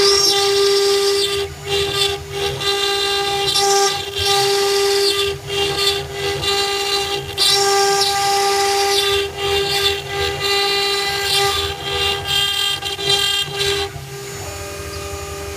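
Spindle of an Acctek 1212 CNC router whining with a steady tone while its bit engraves stone, the noise of the cut rising and falling and dropping out briefly many times.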